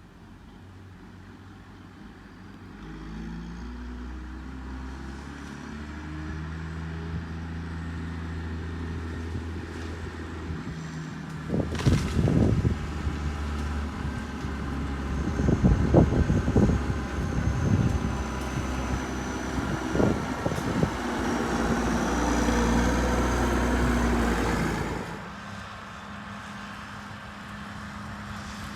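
Case IH MX135 tractor's diesel engine running, growing louder with its pitch stepping up from about three seconds in. Several sharp knocks come through the middle, and the engine runs hardest just before it drops back suddenly to a steady lower idle near the end.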